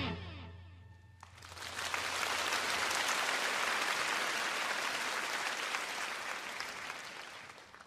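The band's final note dies away in the first second, then an audience applauds for about six seconds, fading out near the end.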